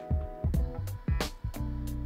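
Background music with a bass line and a steady drum beat.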